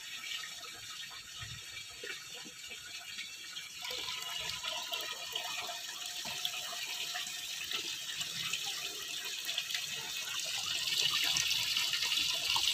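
Water running in a steady stream and splashing: filtered water pouring from a homemade filter's PVC outlet pipe into a glass, then, louder near the end, a tap pouring into a bucket.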